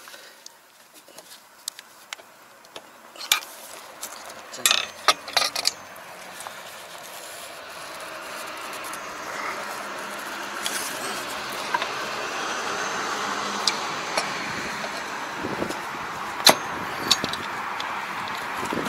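Metal hand tools, a ratchet and spanner, clicking and clinking against a rotary tiller's gearbox housing while the bolts of its stuck cover are worked. The clinks come in a cluster a few seconds in and singly later, over a steady rushing background that slowly grows louder.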